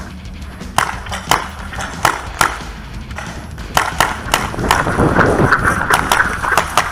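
Paintball markers firing: a string of sharp, irregularly spaced shots. Around five seconds in, a stretch of close rustling and brushing through grass as the player moves around a cable spool.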